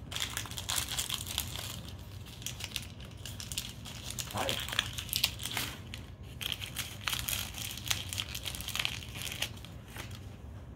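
Toy packaging being crinkled and torn open by hand: an irregular run of crackling and rustling.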